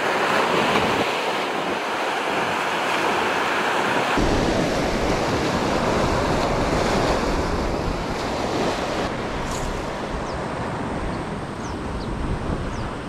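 Sea surf washing steadily on the shore, with wind on the microphone. From about four seconds in, a low wind rumble buffets the mic.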